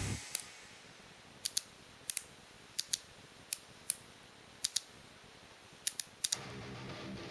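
Sharp clicks of a Kaiyodo Revoltech figure's ratcheting plastic joints being turned by hand, about a dozen of them, spaced out and often in quick pairs.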